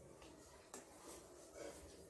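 Faint chewing of a person eating a mouthful of food, with a few soft wet mouth clicks.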